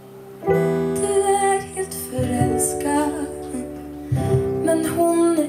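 Live acoustic set: a woman sings long held notes over a strummed acoustic guitar. The guitar comes back in about half a second in, after a brief lull.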